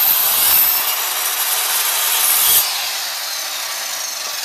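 Ryobi compact miter saw cutting into a pine board for about two and a half seconds, then the blade spins down more quietly. The board is too wide for the small saw to cut through in one pass.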